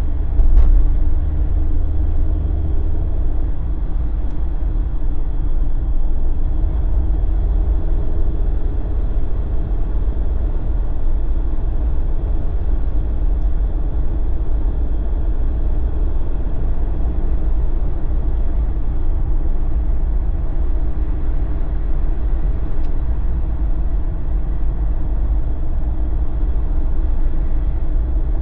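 Jeep driving at steady speed: a constant low road and engine rumble with a faint wavering hum of tyres and drivetrain. There is a brief knock about half a second in.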